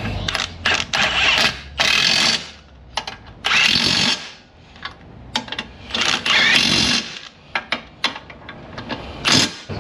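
Cordless impact wrench driving a suspension bolt at the lower control arm and steering knuckle. It runs in three bursts of about a second each, every one with a rising whine over the hammering, with short blips between them and one brief final burst near the end.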